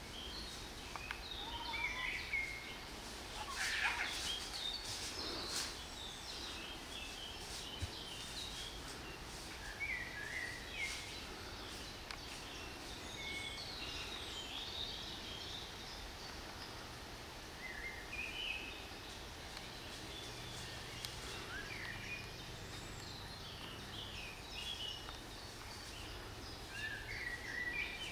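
Woodland songbirds singing and chirping on and off in short phrases over a steady background hiss. There are a few brief clicks, mostly a few seconds in.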